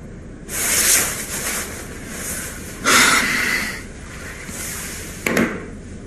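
Rustling of a padded jacket as something is taken from it, then a heavy breath out about three seconds in, and a brief sharp sound near the end.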